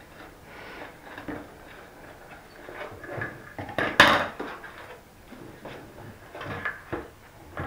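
Hard plastic toy pieces clattering and knocking as a toy cruise ship playset is handled and fitted together, with one loud, sharp click about four seconds in.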